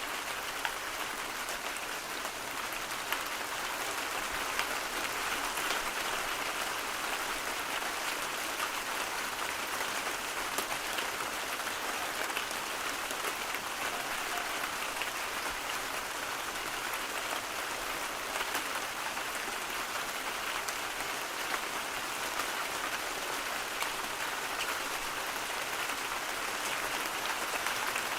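Steady, dense rain falling, many small drops pattering on a surface in an even hiss.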